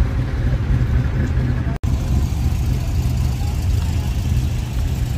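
Classic cars' engines idling and running as they roll slowly in a line, a steady low rumble. The sound cuts out for an instant just under two seconds in.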